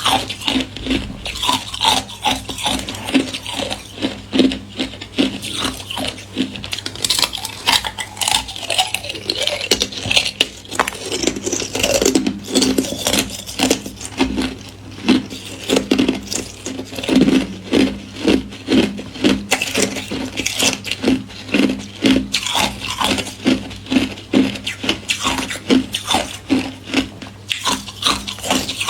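Thin ice being bitten and chewed close to the microphone: a continuous run of crisp crunches and crackles, two or three a second.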